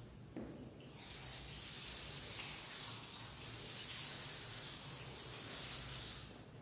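Steady hiss of water spraying onto a rug, starting about a second in and stopping shortly before the end.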